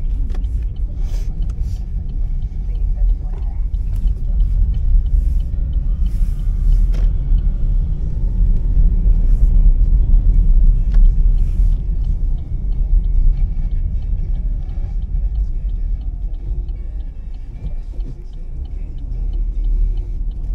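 Steady low rumble of a Chevrolet car being driven, heard inside the cabin: engine and road noise, with a few faint clicks.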